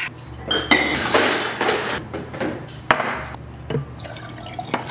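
Water running briefly, followed by a few light clicks and knocks.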